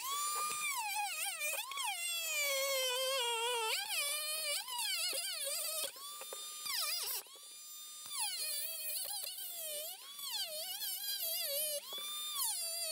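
Dremel rotary tool with a cutting disc slicing into a plastic case: a high whine that drops and wavers in pitch each time the disc bites into the plastic and returns to a steady higher pitch when it runs free, several times over.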